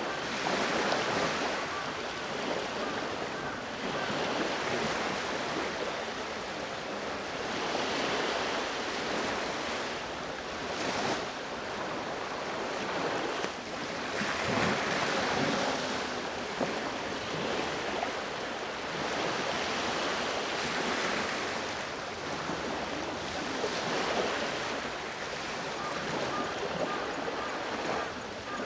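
Sea waves breaking and washing up the shore, surging and fading every few seconds.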